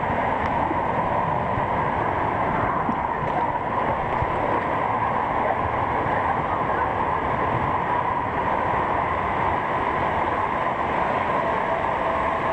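Steady, loud rushing noise of water and machinery echoing through an indoor waterpark, with no break or change.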